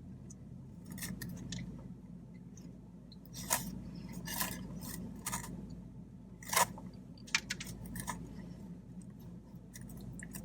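Close-up eating sounds from takeout fried food: scattered sharp crunches and clicks of chewing and handling, the loudest about two-thirds of the way in, over a low steady hum.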